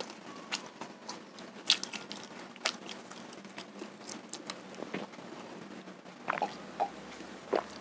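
Close-up chewing and wet mouth smacks of a man eating sate kere, with scattered small clicks. In the second half he drinks water from a glass, and a few swallowing gulps come near the end.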